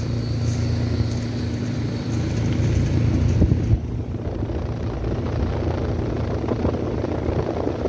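Trane XR15 2-ton outdoor condensing unit running: the Climatuff reciprocating compressor hums steadily under the rush of the condenser fan.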